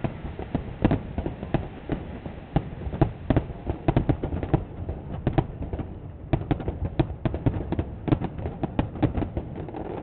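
Fireworks display: aerial shells bursting in a rapid, irregular string of bangs and crackles, several a second, over a continuous low rumble.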